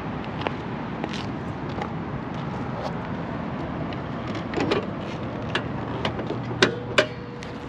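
Hood latch of a 1994 Subaru Legacy wagon being worked by hand to open the hood: a dull thump, then two sharp metallic clacks about half a second apart near the end, with a faint ringing after them.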